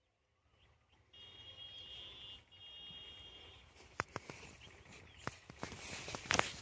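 Faint outdoor field sound: a steady high-pitched trilling tone for about two and a half seconds, broken once, then a run of sharp clicks and rustling near the end as the phone is handled among chili plants.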